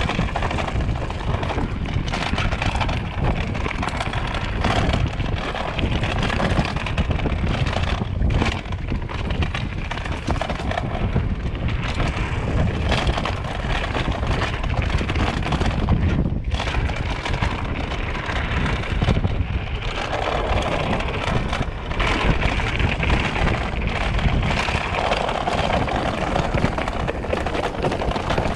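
Mountain bike riding down a rooty, rocky dirt singletrack: a constant rumble of the tyres with frequent rattles and knocks from the bike over roots and rocks.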